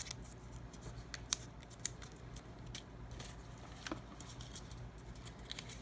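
Scissors snipping paper name slips: quiet, scattered sharp snips with light paper rustling.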